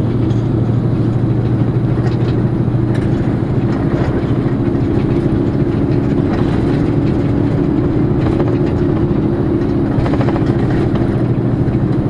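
Intercity bus cabin while driving: a steady low engine hum mixed with even road noise.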